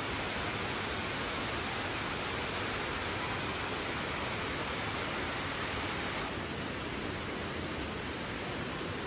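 Steady rushing of water falling down a partly frozen waterfall, with a slight change in tone about six seconds in.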